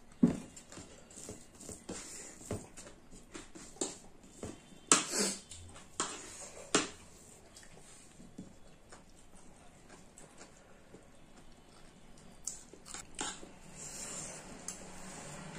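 Eating sounds at a meal: a spoon clicking and scraping against a plate, along with chewing, in scattered sharp clicks. The loudest clicks come near the start and about five to seven seconds in.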